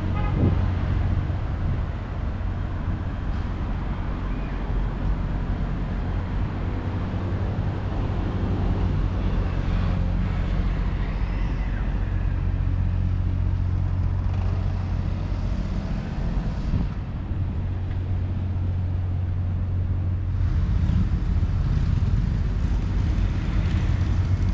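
Steady low rumble of road traffic, with cars and engines running on a nearby city street.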